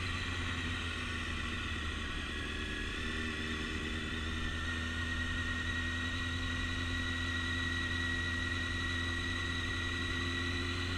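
Motorcycle engine running at a steady low speed while riding through a slow practice turn, its pitch staying nearly even throughout.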